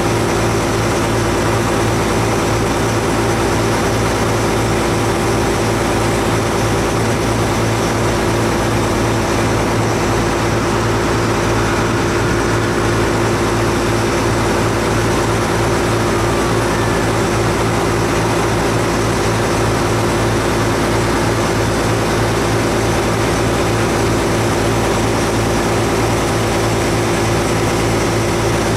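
River ferry's engine running steadily at cruising speed, a loud, even, unchanging drone.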